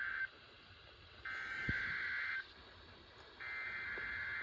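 Emergency Alert System SAME header: harsh, buzzing digital data tones in bursts about a second long, each followed by about a second's pause. The end of one burst, then a second, then most of a third are heard. This is the three-fold data burst that opens an alert.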